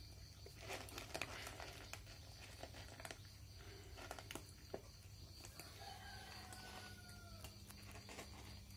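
Cats eating from a shared bowl, with faint scattered clicks and smacks of chewing and lapping. About six seconds in, a rooster crows faintly, one long call that falls slightly in pitch.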